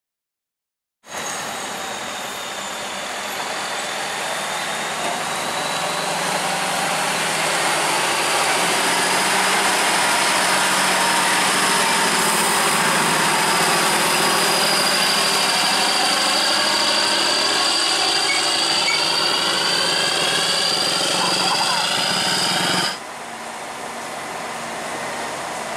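Heavy truck's diesel engine running close by, a steady din with a thin high whine over it. The sound cuts off suddenly near the end to quieter road and engine noise.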